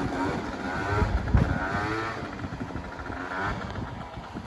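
Scooter engine, a Piaggio Zip fitted with a 125cc Gilera Runner engine, revving hard in several rising-and-falling sweeps, loudest a little over a second in.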